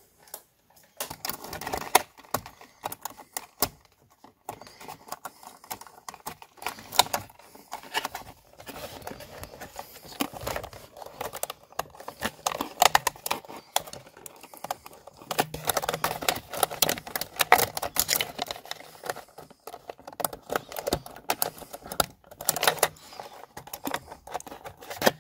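Irregular clicks, knocks and rattles of plastic and metal as a car steering wheel is worked off its column and its wiring connectors are fed out through it.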